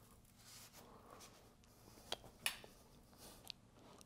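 Near silence: quiet room tone with a few faint, short clicks and taps.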